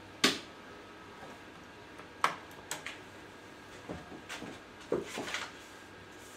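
Handling knocks around a UV exposure box. A sharp knock comes about a quarter second in and another about two seconds in, then lighter clicks and a run of knocks and clatter near the end.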